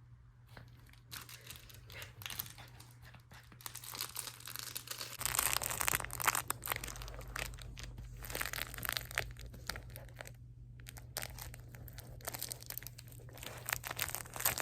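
A miniature dachshund chewing and tugging at a crinkly toy: irregular crinkling and crackling, busiest about five to seven seconds in and again near the end.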